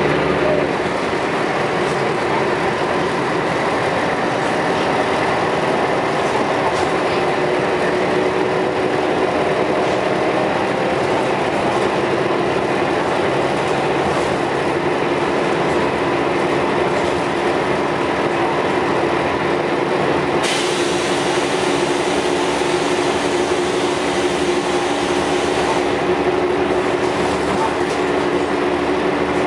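Scania L113CRL bus's 11-litre six-cylinder diesel running steadily, with a constant drone and engine tones. About two-thirds of the way through, a loud hiss starts suddenly, lasts about five seconds, and then stops.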